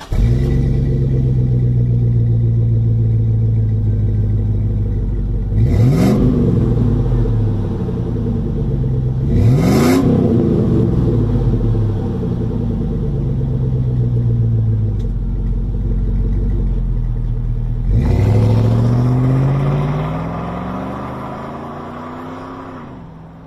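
2001 Chevy Suburban's V8 idling through a Flowmaster Delta 50 muffler. It is revved sharply twice, about six and ten seconds in. Near the end it accelerates away and fades as the truck pulls off.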